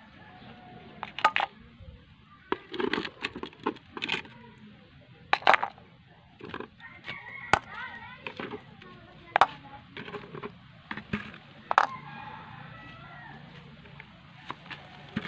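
Snails in their shells being dropped one at a time into a metal pan, each shell landing with a sharp clack on the metal or against the other shells, about ten times in all.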